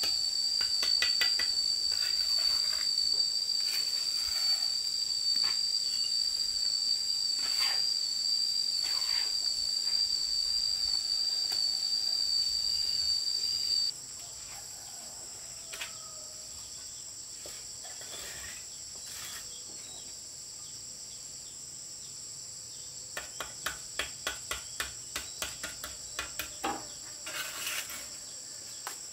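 Insects droning steadily, with a loud shrill high tone that cuts off about halfway through. Over it come scattered clicks of bricklaying, and near the end a quick run of light taps as bricks are set into place on mortar.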